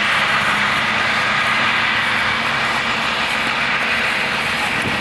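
A steady, engine-like droning noise that holds at an even level throughout.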